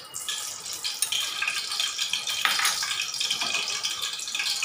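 Sunflower oil crackling and sizzling as it heats in a hot aluminium kadai, with a metal spoon scraping the pan near the start.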